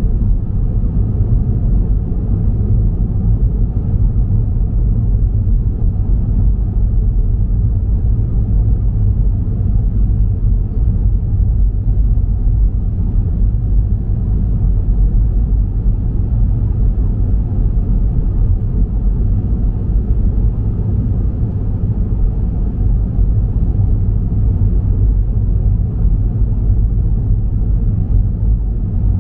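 Steady low rumble of a car being driven: engine and road noise, unbroken.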